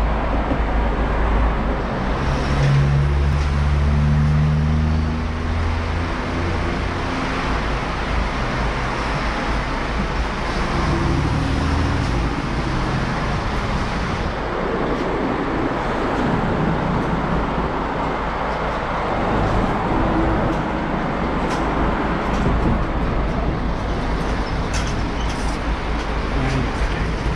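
A large diesel coach's engine running at idle nearby, with road traffic passing on the street.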